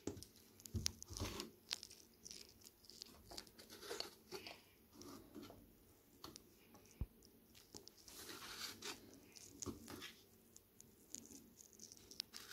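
Faint crinkling of a small plastic bag being squeezed and handled while grout paste is pushed from it into a plastic squeeze bottle, with scattered small clicks and rustles throughout.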